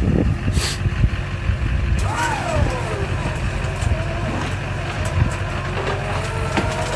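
Vehicle engine running steadily while electric winches pull under load to drag a dead tracked skid steer, with a whining tone from about five seconds in.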